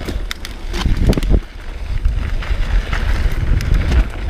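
Wind buffeting the microphone of a camera on a mountain bike riding fast down a dirt and gravel track, with a steady low rumble and frequent sharp clicks and rattles from the bike and the stones under the tyres.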